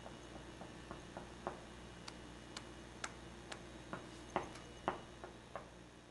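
Faint, irregular clicks, about two or three a second, the two loudest a little past the middle, over a steady low hum.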